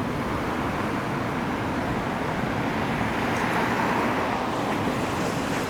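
Road traffic on a city street, with a car passing that swells and is loudest about four seconds in.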